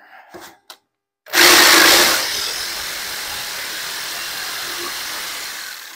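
Corded jigsaw cutting the inside hole out of a small block of scrap wood. It starts about a second in, is loudest for the first second, then runs steadily and dies away at the very end.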